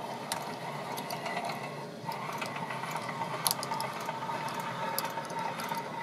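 Roller inductor of a Heathkit SA2060A antenna tuner being spun fast by a crank-type spinner knob, its gear train and turns counter whirring steadily with scattered small clicks.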